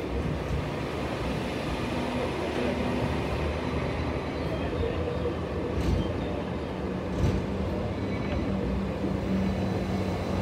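Hong Kong double-decker tram running along street track, heard from on board: a steady rumble of steel wheels on the rails with motor hum. There are two short knocks about six and seven seconds in, and a steady low hum comes in near the end.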